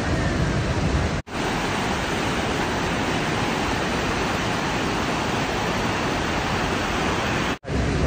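Waterfall and river rapids rushing, a steady loud roar of white water. It drops out to silence twice, very briefly: about a second in and near the end.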